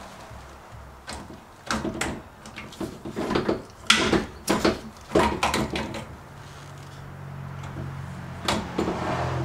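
Irregular knocks and clicks of pipe fittings and a hand crimping tool being handled during a pipe-crimping job. A low steady hum starts about six seconds in.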